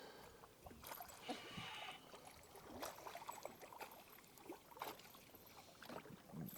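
Faint water splashing and scattered light knocks and clicks around a small boat while a hooked pickerel is brought in.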